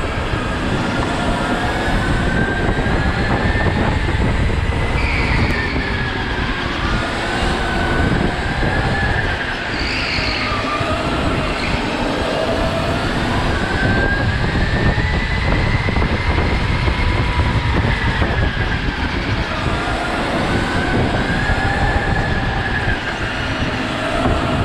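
Go-kart at racing speed on a concrete track, heard from the driver's seat. The motor's whine rises and falls with the throttle through the corners, over a steady rumble of tyres and chassis.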